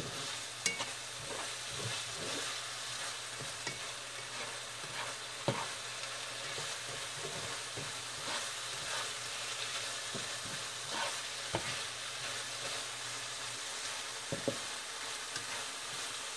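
Ground beef and onion filling sizzling in a frying pan as it is stirred, a steady hiss with a few sharp clicks of the utensil against the pan.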